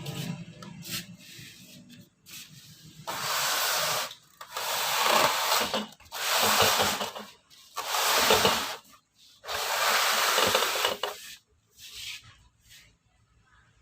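A series of about five rubbing or scraping strokes, each a second or so long, starting about three seconds in.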